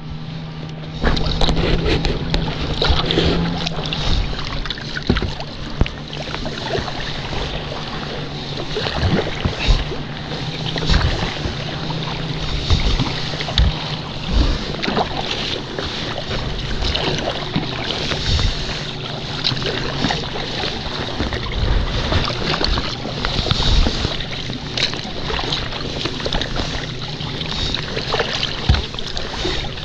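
Water splashing and sloshing around a sea kayak under way, with paddle strokes and wind buffeting the microphone. A low steady hum runs through the first half.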